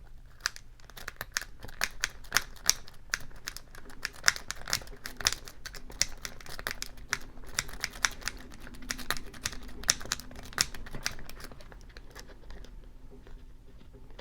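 A Sparrow's worm rake scraping in and out of the keyway of a four-pin Master Lock M187XKAD padlock, with quick, irregular little metallic clicks of the pins, several a second. The clicking stops about three seconds before the end.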